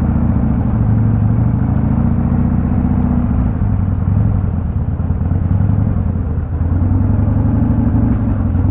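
Harley-Davidson V-twin engine running at low revs as the motorcycle rolls slowly in traffic, a steady low engine note that rises and falls a little with the throttle.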